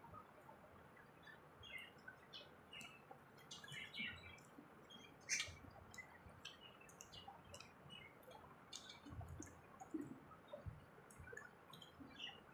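Faint, scattered chirping of small birds, with soft clicks and light taps.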